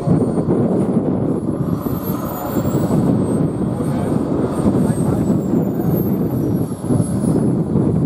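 Radio-controlled model jet's turbine running as it taxis, with a steady rushing exhaust noise. A high whine rises in pitch over the first few seconds as the turbine spools up, holds, then falls back near the end.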